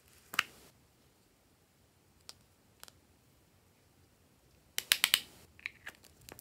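Sharp clicks and snaps of hard plastic from a donut-shaped plastic slime container being handled, one loud click about half a second in, two lighter ones around two and three seconds, and a quick run of about five clicks about five seconds in.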